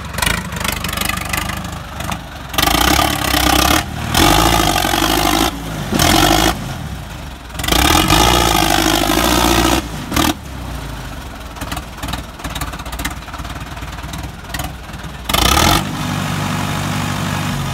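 Tractor diesel engine running under the driver's throttle, dropping back to a steady idle between about five hard revs, each lasting from half a second to about two seconds.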